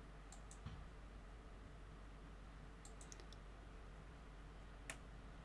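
Near silence with a few faint clicks from a hand screwdriver fitted with a socket extension turning small nuts onto the console's pins. There is a low thump under a second in, a short run of clicks about three seconds in, and one sharper click near the end.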